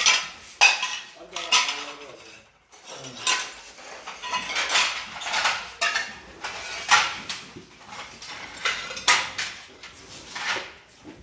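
Broken ceramic tile pieces clinking and clattering against one another and the floor as they are handled and set by hand, in an irregular string of sharp clinks.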